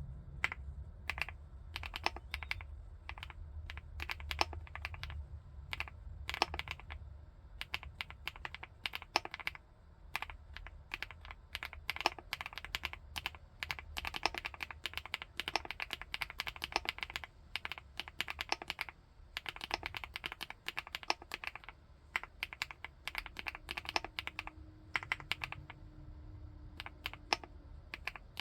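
Typing on a 75%-layout full-aluminium keyboard: a steady, uneven stream of keystrokes with fast runs and short pauses, keys clacking against the metal case.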